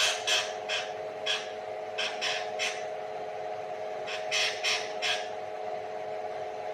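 A songbird giving harsh, raspy calls in three quick runs of three or four, over a steady low hum.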